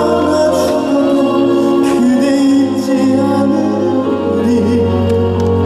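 Live trot ballad: a male singer holding a long, slightly wavering note over a full band backing, with cymbal and drum hits.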